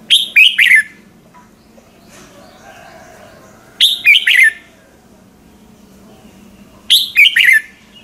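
Red-whiskered bulbul singing three short, loud song phrases about three seconds apart. Each phrase is a quick run of several notes lasting under a second.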